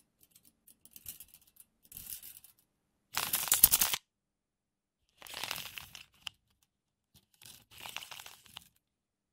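Metal tape measure, its steel blade being pulled out and wound back in a series of short strokes: a rasping, rattling slide against the case. The loudest stroke comes about three seconds in, and there is one sharp click just after six seconds.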